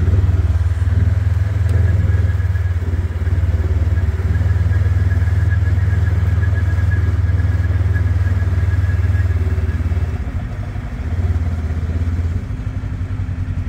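Tractor engine running steadily at close range, a low pulsing drone; it eases off a little near the end.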